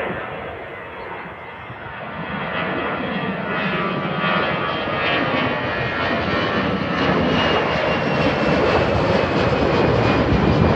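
Jet engines of an Airbus A320 airliner passing near the airport, a steady rushing noise that grows louder from about two seconds in.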